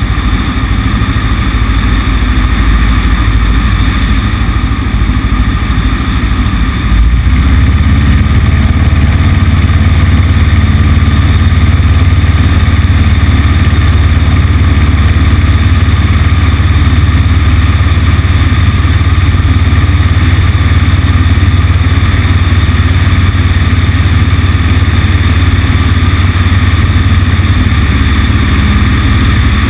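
Cessna 150's four-cylinder Continental O-200 engine and propeller running steadily in flight, with a rush of airflow over the wing-mounted microphone. About seven seconds in, the engine note shifts and grows louder.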